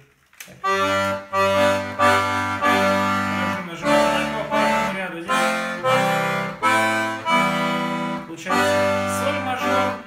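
Wooden Irish button accordion made by Bertrand Gaillard, sounding a series of held chords over deep bass notes, each changing to the next after about half a second to a second, following a brief pause at the start.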